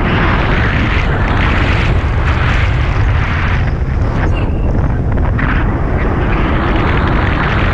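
Wind rushing over an action camera's microphone in flight: a loud, steady rumble and hiss that swells and dips.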